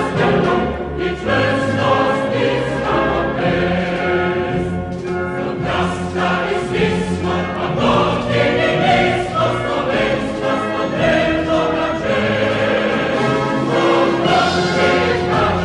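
Choral music with sustained sung chords over instrumental accompaniment.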